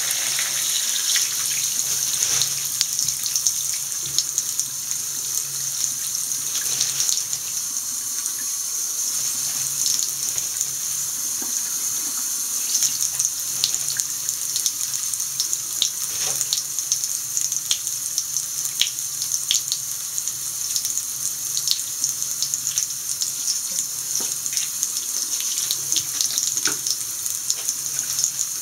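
Tap water running steadily from a mixer faucet into a ceramic washbasin, the stream splashing onto charred debris and draining away.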